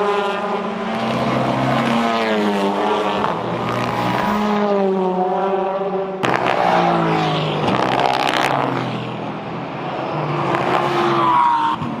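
Race car engines accelerating through a corner, their pitch climbing and dropping with each gearshift. The sound changes abruptly about six seconds in, and another engine climbs in pitch near the end as a pack of cars arrives.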